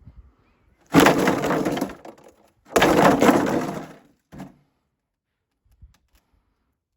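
A mare snorting twice: two forceful, loud blasts of air through the nostrils, each about a second long, then a short weaker puff. This is the snorting of a horse at play.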